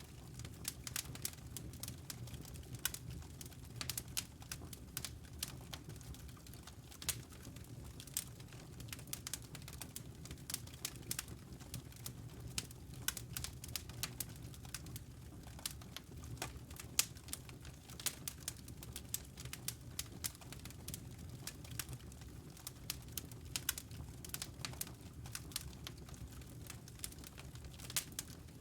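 Fire crackling in a fireplace: irregular sharp pops and snaps, several a second, over a low steady rumble.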